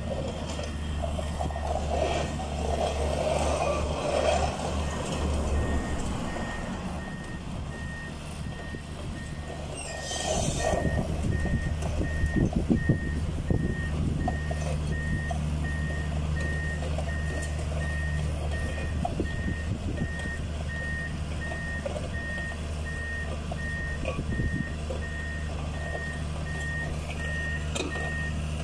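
A backhoe's diesel engine runs under load. After about six seconds a reverse alarm starts beeping at an even pace, a little over once a second. The engine gets louder for a few seconds around the middle.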